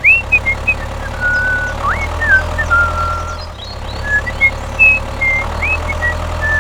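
A steady low engine hum, dipping briefly about halfway through, with many short high chirping glides over it.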